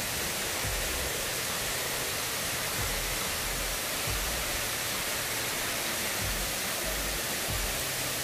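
Steady rushing roar of a waterfall, with a few short low bumps underneath.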